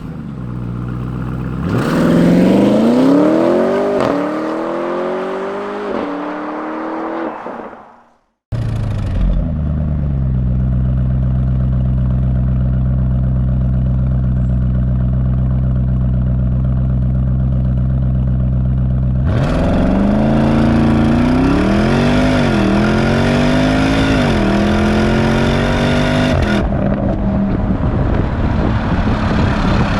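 Porsche Cayenne GTS's 4.0-litre twin-turbo V8 through its stock sport exhaust. It first pulls away with the pitch climbing and dropping back several times as it fades out. Then it idles steadily, and about 19 seconds in it is revved up and down several times before settling to a steady run.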